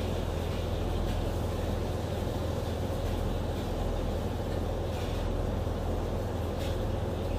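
Steady low drone of a ship's engines and machinery, an even rumble with no change in level. A couple of faint light clicks sound near the end.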